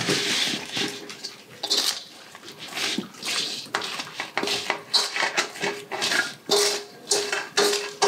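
A spoon scraping wet chopped green tomatoes and onions out of a large stainless steel bowl into a crock pot: a string of short scrapes and squelching slides, with a faint ringing tone from the bowl on the later strokes.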